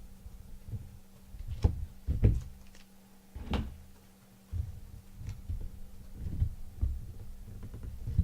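Handling of cardboard boxes and packaging on a table: a few sharp knocks in the first half, then duller thumps, over a steady low electrical hum.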